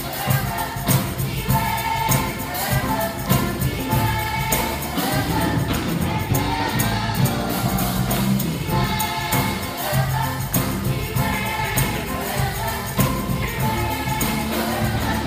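A choir singing a gospel worship song over band accompaniment, with a steady beat of drums or tambourine.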